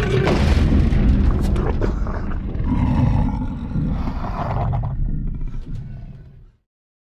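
Jurassic Park/World Tyrannosaurus rex roar sound effect: one long, deep roar that tails off and fades out about six and a half seconds in.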